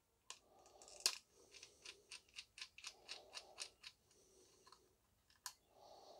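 Faint clicking and ticking of a small T8 Torx screwdriver turning out the screws on the battery terminal connections of a Dyson V7 motor head, a rapid run of light clicks with a louder click about a second in.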